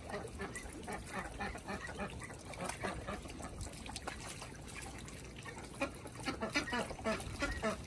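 Domestic geese dabbling their bills in shallow floodwater, a run of many quick splashes, with occasional honks among them.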